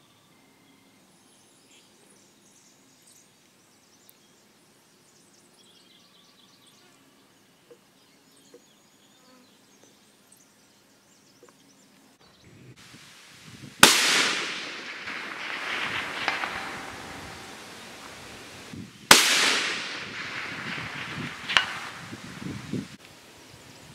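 Two shots from a suppressed 6.5 Grendel AR-15 rifle, about five seconds apart. Each is a sharp crack followed by a long rolling echo that dies away over several seconds. Before the shots there is only faint birdsong.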